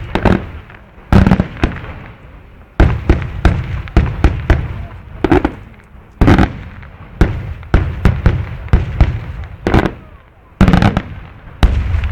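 Daytime aerial fireworks shells going off in a fast, irregular run of loud bangs, often two or three in quick succession, with a short rolling echo after each and gaps of up to about a second between clusters.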